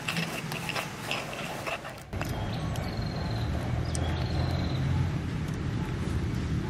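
Stone pestle grinding peppercorns in a stone mortar: sharp crunching and scraping for about the first two seconds. Then the sound changes abruptly to a steady low rumble, with a faint thin high-pitched tone twice.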